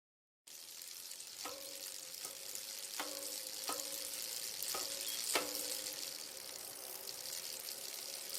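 Steady hiss with about six quiet plucked or struck notes, each ringing on briefly: the faint start of background music.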